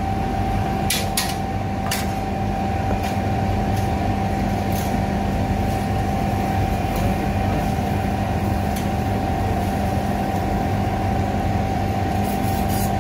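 Steady machine hum holding a constant high tone over a lower drone, with a few short clicks in the first couple of seconds and one more a little later.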